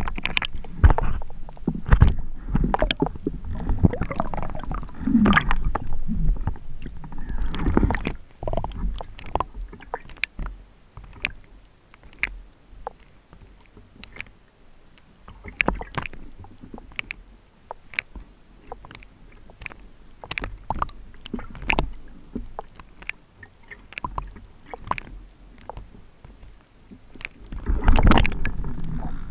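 Muffled underwater water noise heard through a GoPro's waterproof housing: the sloshing and rush of a freediver moving through the water, with many scattered sharp clicks. It is louder in the first few seconds, quieter in the middle, and swells again near the end as the camera breaks the surface.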